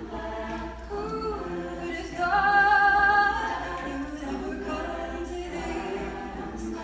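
Women's a cappella choir singing in sustained chords, with no instruments. The singing swells louder on a held note about two seconds in, then settles back.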